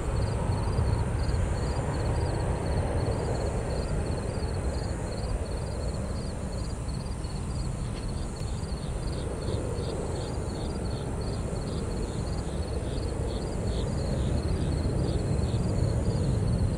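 Distant jet airliner taking off: a steady low rumble from its engines at full power as it rolls and climbs out. Over it comes a high chirping that repeats evenly a few times a second.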